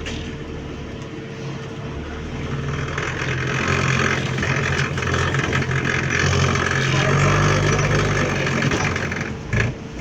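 Bus engine running with a steady low hum that swells louder a couple of seconds in, with a rush of road or air noise, then eases off, with a couple of sharp knocks near the end.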